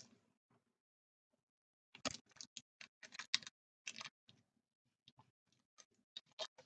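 Faint clicks and crackles of a sealed hockey card box being opened and its contents handled by hand. One sharp click starts it, a quiet second or so follows, then a dense run of crinkly clicks and a few scattered ones near the end.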